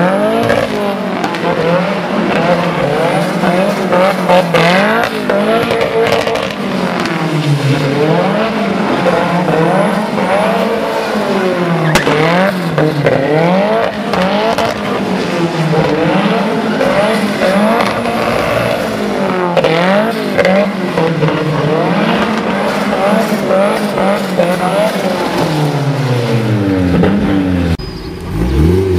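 A small hatchback's engine is revved hard and let off again and again as it is driven around a motorkhana cone course, its pitch climbing and falling every second or two. Near the end it dips briefly and another car's engine revs up.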